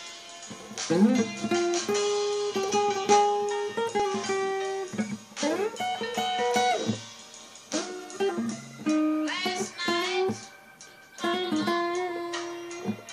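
Solo guitar played with separate picked notes and chords, several notes sliding up in pitch into place, in a slow phrase with short pauses between lines.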